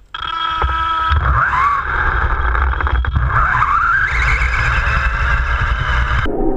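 The brushless electric motor of a 1/10-scale 4WD RC buggy whines and rises in pitch twice as it accelerates. Under it is a steady rumble from the tyres and chassis running over the ground, picked up close by a camera mounted on the car. The sound changes abruptly near the end.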